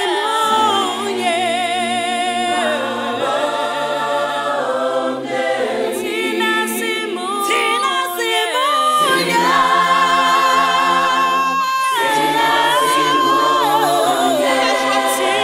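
Unaccompanied choir singing in harmony, low and high voices holding long chords. A higher lead voice sustains one long note for a few seconds past the middle.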